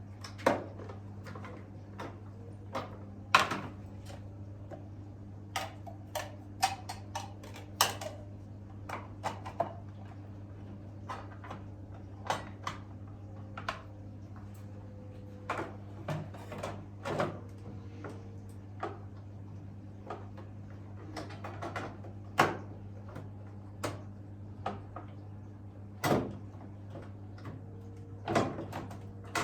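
Irregular clicks, knocks and clinks of coffee machine parts being handled during cleaning, over a steady low hum.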